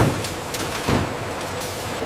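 Factory processing machinery running steadily, with two sharp knocks about a second apart.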